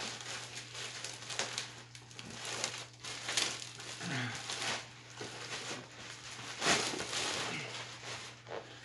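Plastic packaging wrap crinkling and rustling in irregular handling bursts as the gaming chair's backrest is unwrapped.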